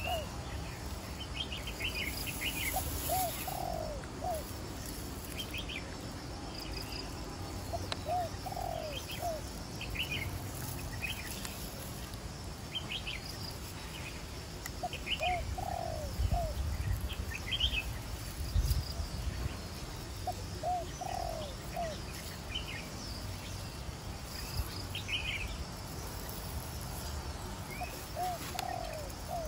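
Birds calling outdoors: a low cooing phrase of two or three notes repeats every five or six seconds, with short high chirps from small birds in between.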